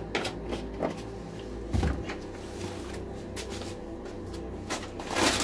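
Workshop handling sounds: scattered light clicks and knocks, a heavier thump about two seconds in, and a louder scraping rustle near the end, over a low steady hum.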